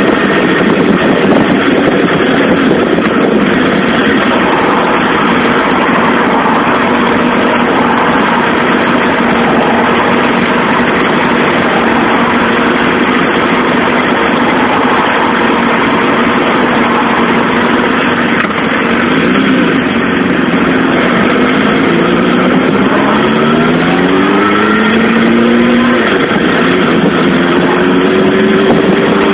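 Suzuki GSX-R SRAD inline-four engine running steadily while the bike is under way. About two-thirds of the way in it rises in pitch several times in quick succession as the bike accelerates through the gears, then settles at a higher steady note near the end. A loud rushing noise runs under it throughout.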